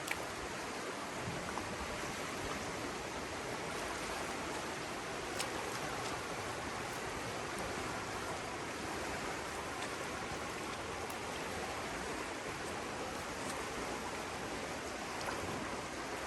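River water rushing steadily over rocks, with a few faint ticks in it.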